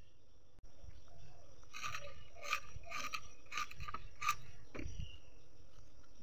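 Crisp, crunchy cuts as a banana stem core is sliced against an upright fixed kitchen blade: a run of about seven short strokes between about two and four seconds in.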